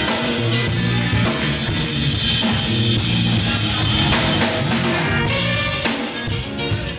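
Live band playing: a drum kit keeps the beat under electric guitar and violin, with keyboard and congas in the mix.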